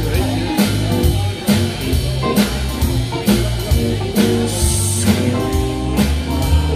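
Live band playing an instrumental break in a rockabilly song: electric guitar lead over bass and a drum kit beating a steady rhythm.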